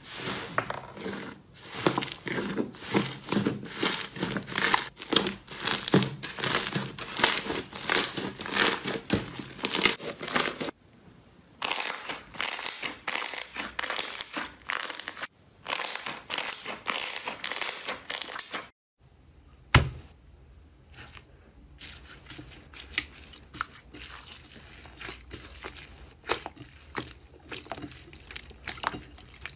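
Hands squeezing and pressing slime: a crowded run of crackles and sticky tearing sounds, loudest for the first ten seconds. It breaks off abruptly twice, and in the last third the crackles come quieter and more scattered.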